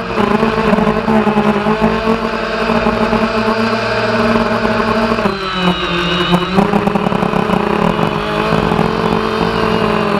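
Quadcopter drone's electric motors and propellers whirring steadily, heard close up through the drone's own onboard camera, in several overlapping pitches. About halfway through, the pitch dips for a second or so, then settles again.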